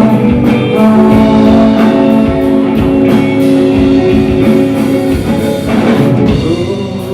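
Live rock band playing an instrumental passage: electric guitars, bass and drum kit, with the drums keeping a steady beat.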